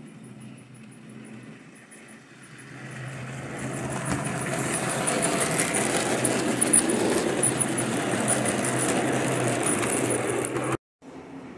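OO gauge model train running along the track: a steady running sound that grows louder as the train approaches from about three seconds in, holds while the wagons pass, then cuts off abruptly near the end.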